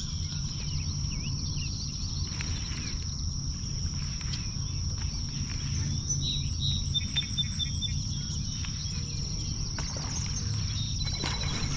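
Outdoor ambience by the water: a steady high-pitched insect drone over a low steady rumble, with a few short bird calls about six to seven seconds in.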